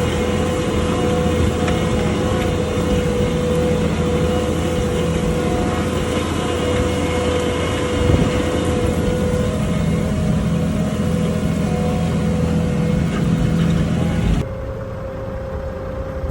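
Ford 8340 tractor engine running steadily while ploughing. Near the end it suddenly becomes quieter.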